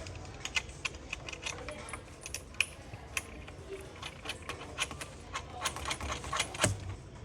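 Light metallic clicks and clinks of small half-moon-headed bolts and nuts being handled and fitted to a bed frame, scattered irregularly, with a slightly louder knock near the end.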